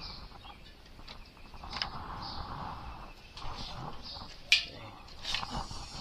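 Small clicks and taps from handling a multimeter and tools on a steel tray, with one sharp click about four and a half seconds in.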